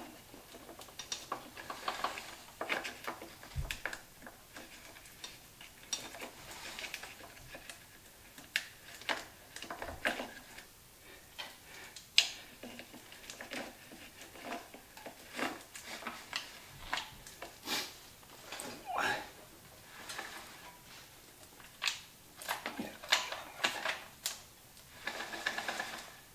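Roller drive chain clinking and rattling as it is worked by hand onto a dirt bike's rear sprocket: many short, irregular metallic clicks with small pauses between.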